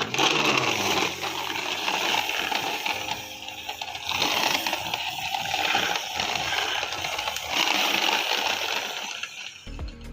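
Small plastic toy vehicle being run by hand, its wheels and gearing making a continuous clicking rattle that eases off near the end.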